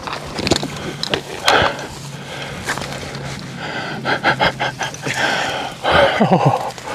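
A person panting and gasping hard, with rustling and clicking from clothing and brush. Near the end come short, strained breath sounds that fall in pitch.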